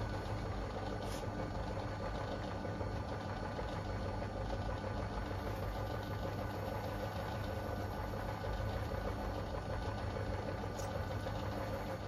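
Myford ML7 lathe running steadily with an even motor and gear hum while the boss of a flywheel is faced.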